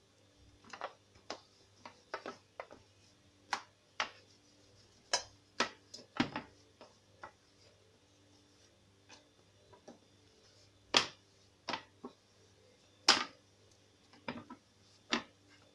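Irregular sharp taps and knocks of hands, an oiling brush and a metal rolling pin on a stone countertop as dough is pressed flat and rolled out, a few knocks much louder than the rest, over a faint steady hum.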